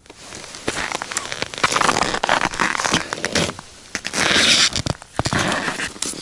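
Close rustling and crackling with many scattered clicks and crunches: clothing and packed snow rubbing near the microphone as the angler handles a fish and lays it on the snow.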